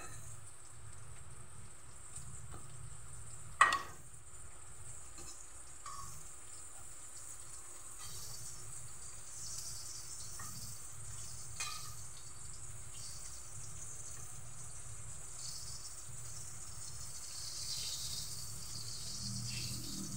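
Breaded pork pieces frying in hot oil with a steady sizzling hiss. A few sharp clicks cut through it, the loudest about four seconds in.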